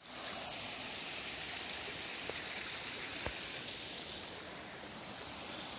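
Shallow mountain stream running over rocks: a steady rush of water that eases slightly about two-thirds of the way through.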